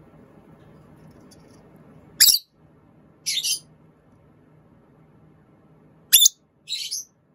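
Lovebird calling: shrill, high-pitched chirps, each time a sharp loud chirp followed about a second later by a shorter two-part call, heard twice, over a faint steady low hum.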